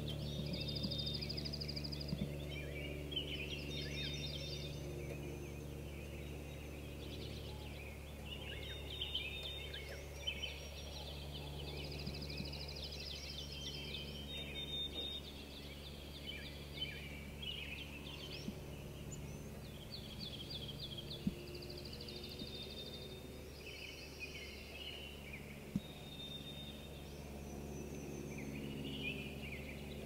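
Several songbirds singing over one another, a mix of fast trills and short slurred phrases, over a steady low hum.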